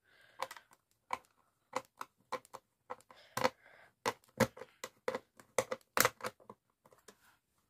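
Screwdriver turning out the small screws that hold a speaker driver in its cabinet: a string of irregular sharp clicks and ticks, some quick and close together, with short gaps between.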